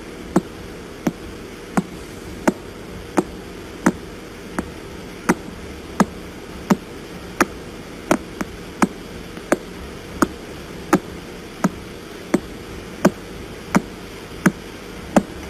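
Pulsar radio signal played as sound: a regular knock-like click about one and a half times a second, like someone knocking on a door, some clicks stronger than others, over steady radio static.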